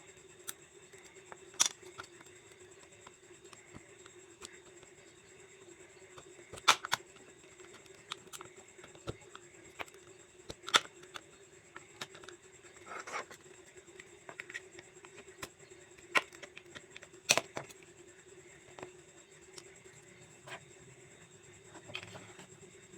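Small hard plastic earbud parts and tools being handled in a teardown: irregular sharp clicks and brief scrapes, a few seconds apart, over a steady low hum.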